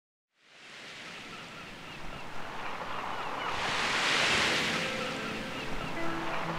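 Sea waves washing against the shore, with gulls calling over them; the sound fades in from silence, and a wave swells up loudest about four seconds in.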